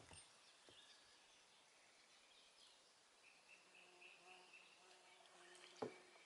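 Near silence on a riverbank: faint bird chirps, a faint steady buzz from about halfway, and one sharp knock near the end.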